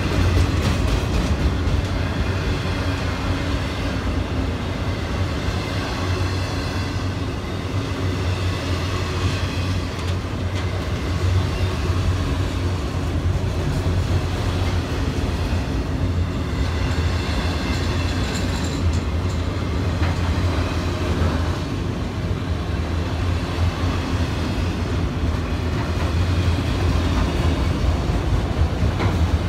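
Freight train of autorack cars rolling past, a steady rumble of steel wheels on the rails that holds at the same loudness throughout, with faint high squeals now and then.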